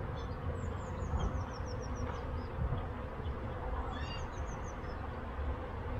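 A colony of honeybees buzzing steadily around an opened hive, a dense continuous hum of many bees. A short run of high descending chirps sounds twice over it, first about half a second in and again around four seconds.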